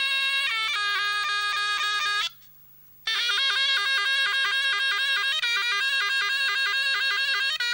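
Instrumental music led by a reedy wind instrument playing a melody in short steady notes over a steady low hum. It cuts out for under a second a little over two seconds in, then carries on.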